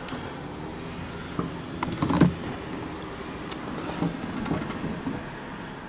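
Steady vehicle rumble heard from inside a car, with a few sharp clicks and a knock about two seconds in.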